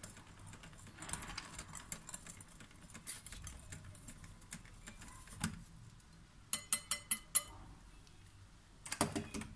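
Wire whisk stirring a thin egg, sugar, oil and water mixture in a glass bowl, ticking and scraping lightly against the glass, with a quick run of about five sharper clicks a little past the middle.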